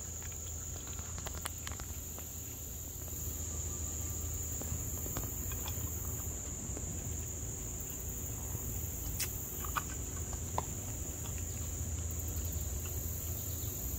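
Steady high-pitched chorus of insects, with a low hum underneath. A few faint clicks come from a raccoon eating cat food out of a steel bowl.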